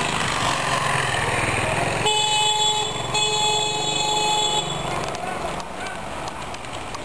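Motor scooter engine running close by. A vehicle horn honks twice over it: a short blast about two seconds in and a longer one about a second later. The engine fades after about five seconds.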